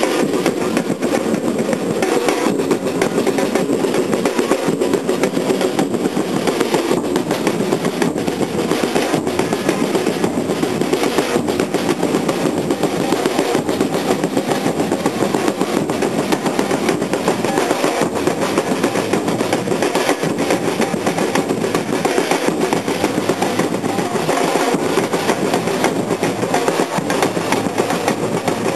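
Bloco afro street drum corps playing together: large surdo-style bass drums and other drums beaten with sticks in a dense, unbroken rhythm. It is loud and close, heard from among the drummers.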